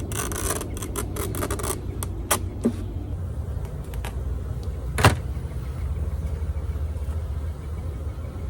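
A knife scraping and prying at a bee package box: a quick run of scrapes and clicks in the first couple of seconds, a few scattered clicks, and one sharp knock about five seconds in, over a steady low rumble.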